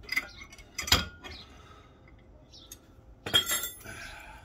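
Metal clinking and clanking from a Rolling Thunder grip handle being unhooked from its loaded plate pin and set down. There is a sharp clink near the start, the loudest clink about a second in, and a ringing clatter of clanks a little after three seconds.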